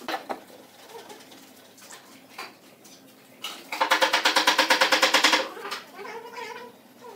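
Squeeze bottle of Titebond wood glue spluttering as glue and air are forced out of the nozzle: a raspy, rapidly pulsing tone of about two seconds, a little past halfway. A light knock of wood set down on the workbench near the start.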